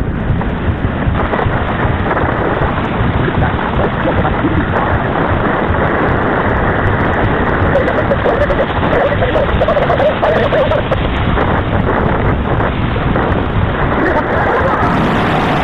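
Tornado wind blasting a storm-chasing car's camera microphone: a loud, unbroken rush of wind noise in a dull, low-fidelity recording. The wind comes from a multiple-vortex tornado as the camera is pulled out of the car.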